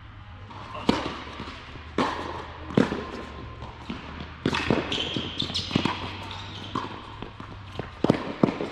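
Tennis serve and rally on an indoor hard court: sharp pops of racket strings hitting the ball and the ball bouncing on the court, about a second apart at first and quicker later, each ringing in the hall's echo.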